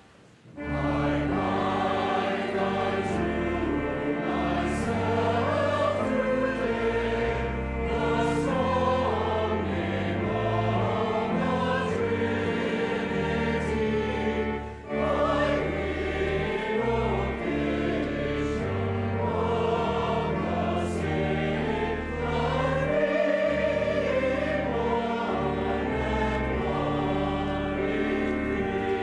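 Choir singing a hymn with organ accompaniment under it, starting just after a brief hush; there is a short pause between phrases about fifteen seconds in.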